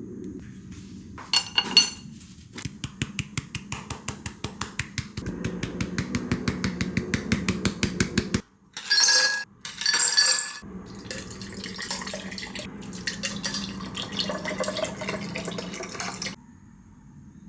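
Kitchen prep: a utensil clicking rapidly and rhythmically against a dish or bowl, broken about halfway through by two louder bursts of rushing, water-like noise, then the quick clicking again.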